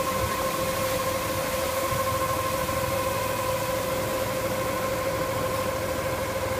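A tractor engine running steadily as it powers a grape-spreading machine, its conveyor laying fresh grapes out onto a ground sheet for drying into raisins, with a steady whine held on one pitch over the engine noise.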